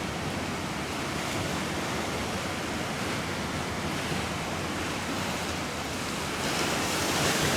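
Ocean surf washing on a sandy beach, a steady rush that swells louder about six and a half seconds in, with wind buffeting the microphone.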